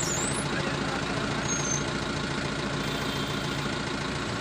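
Heavy diesel engine running steadily at an even, low speed.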